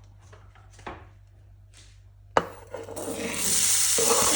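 Light scraping strokes on wood, then a sharp knock about two and a half seconds in and a loud, steady sizzle as chopped onion goes into hot oil in a preheated frying pan.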